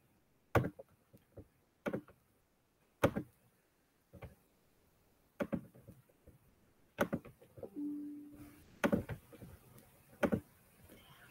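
Scattered computer mouse clicks, about eight spread over several seconds, with a brief low hum a little past the middle.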